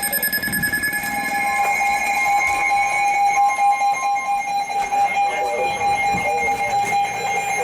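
Emergency Alert System alert tone: a steady electronic two-tone alarm. The higher of the two tones drops out about four seconds in, and the lower one carries on.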